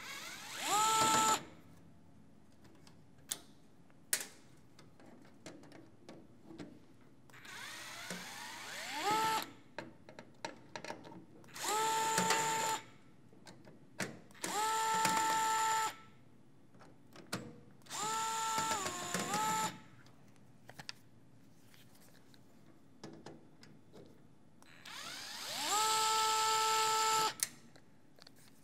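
Cordless electric screwdriver running in six short bursts of one to two seconds, each a whine that rises and then holds steady, turning screws in a record player's changer mechanism; in one burst the pitch sags briefly under load. Small clicks and clinks of screws and metal parts fall between the bursts.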